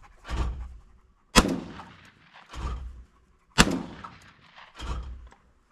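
Two shotgun shots at thrown clay targets, about two seconds apart, each a sharp crack with a ringing tail; a softer, duller sound comes about a second before each shot.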